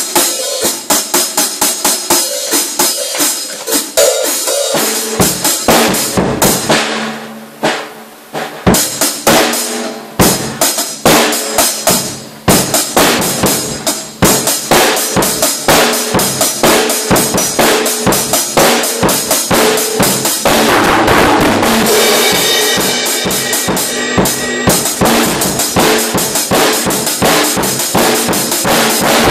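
Acoustic drum kit played solo: fast, dense strokes on snare and toms with bass drum and cymbals. The playing thins out briefly a few seconds in. In the second half the cymbals ring continuously over the beat.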